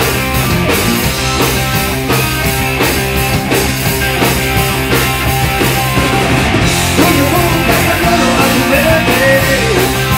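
Rock band playing live: electric guitar, electric bass and a Tama drum kit, with the drums keeping a steady driving beat and a wavering melodic line over it in the second half.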